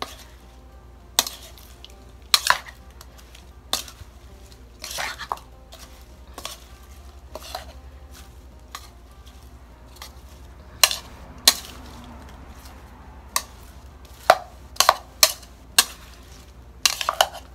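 A metal spoon clinking and scraping against a bowl while fish pieces and chopped herbs are stirred together. The clinks come irregularly, about once a second, bunching into quicker runs near the end.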